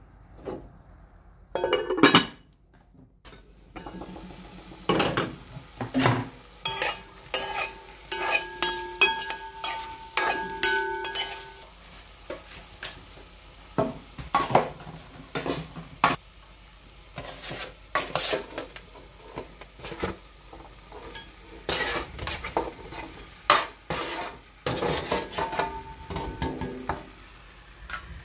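Diced carrots and bell peppers sizzling in an old, well-worn pot as they are stirred, with the spoon knocking and scraping against the pot many times.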